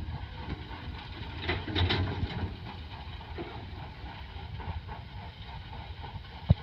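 Hitachi excavator's diesel engine running steadily, with wind on the microphone and one sharp knock near the end.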